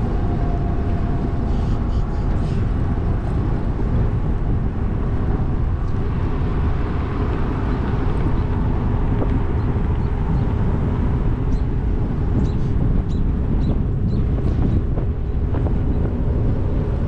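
Steady rushing wind and tyre rumble from an e-bike rolling along a trail, with a faint steady hum underneath and a few light ticks in the second half.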